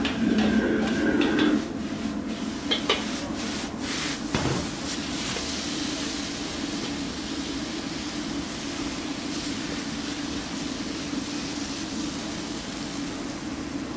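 Wok stir-frying: a metal ladle knocks and scrapes against the wok a few times in the first five seconds. Then crocodile meat and asparagus sizzle steadily over a low, steady kitchen hum.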